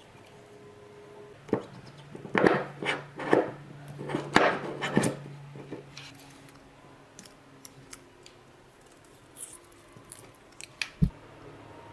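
Hands handling a Toyan four-stroke model engine and its small metal parts: a cluster of clicks and knocks, then lighter scattered ticks and one low thump near the end.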